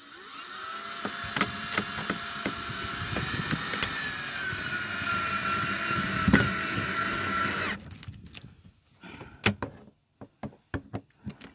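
Cordless drill driving a screw through a plastic kick plate into the door bottom. The motor whines steadily, dips a little in pitch about four seconds in, and stops suddenly near eight seconds. A few light clicks and knocks follow.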